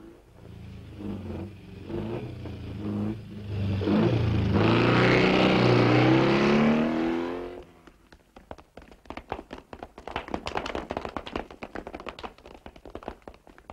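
A motor running and revving up, its pitch rising, then cutting off abruptly about eight seconds in; after it comes a rapid run of clicks and taps.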